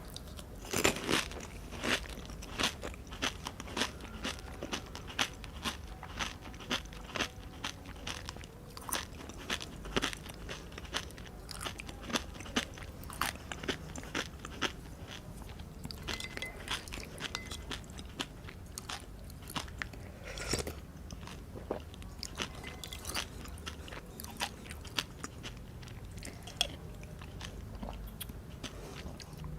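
Close-miked eating of pani puri: the crisp hollow puris crunching and crackling between the teeth with wet chewing, many quick crunches at first that thin out toward the end.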